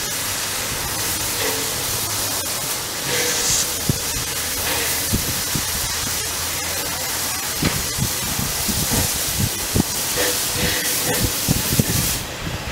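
Small steam tank locomotive pulling away with a passenger train: a loud, steady hiss of venting steam, joined about halfway through by irregular knocks and thumps as the engine gets moving. The hiss cuts off suddenly near the end.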